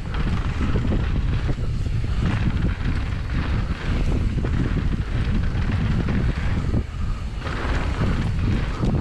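Wind rushing over the microphone at speed, mixed with the rumble and rattle of a downhill mountain bike running over a dirt jump trail.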